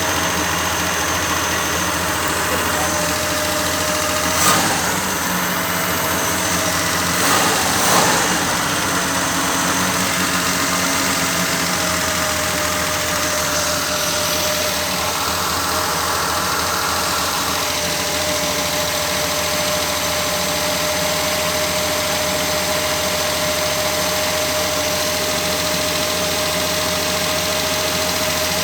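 Car engine idling steadily, with a thin steady whine over the running. A couple of short sharp knocks sound about four and a half and eight seconds in.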